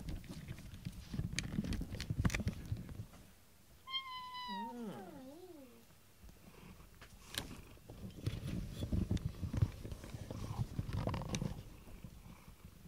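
Domestic tabby cat purring close to the microphone, with a few soft knocks and rustles as it rubs against it. About four seconds in it gives one meow that falls in pitch and then wavers.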